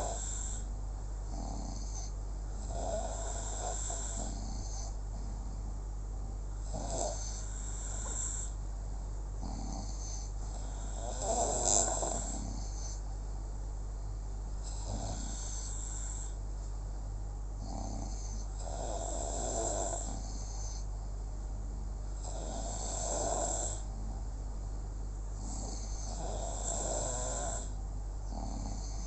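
Snoring in slow, regular breaths, about eight snores spaced roughly four seconds apart, the one near the middle the loudest, over a steady low electrical hum.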